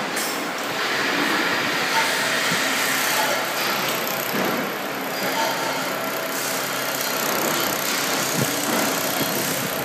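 Steady machinery hum and hiss of a laser welding machine running as it welds a stainless steel cup on its rotating stage, with a few faint knocks.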